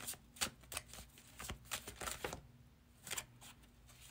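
Tarot cards being shuffled in the hands: a quick run of papery slaps and riffles that pauses about two and a half seconds in, then a short last flurry.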